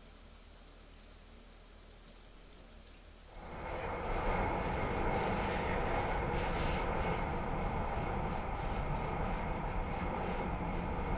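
Faint low hum, then about three seconds in the rumble of a moving train, heard from inside the passenger carriage, rises and runs steadily with a faint high whine over it.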